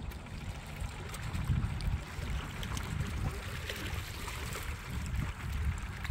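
Small lake waves lapping and trickling against shoreline rocks, over a steady low rumble.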